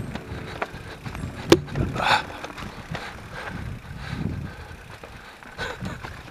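Mountain bike rolling over a trail: an uneven rumble of tyres and frame, with a sharp knock about one and a half seconds in.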